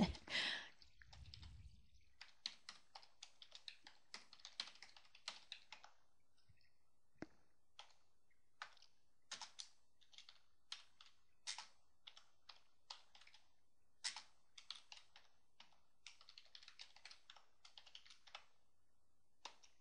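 Faint typing on a computer keyboard: quick runs of keystrokes broken by short pauses.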